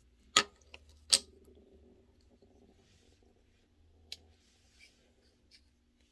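Close handling noise: two sharp clicks within the first second and a half, then soft rustling and a few lighter clicks as a lipstick tube and its cap are handled.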